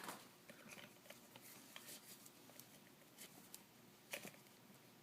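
Faint rustling and light ticks of nylon paracord being handled and pulled into the first cobra knot, with a slightly louder rustle about four seconds in.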